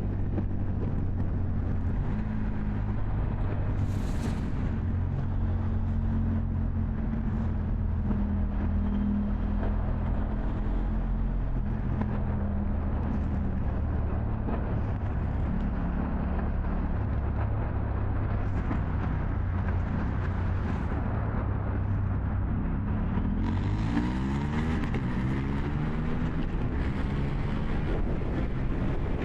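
KTM 790 Duke parallel-twin engine running steadily while riding, with a low, even exhaust note. About three quarters of the way in, wind noise on the microphone rises and the engine pitch glides.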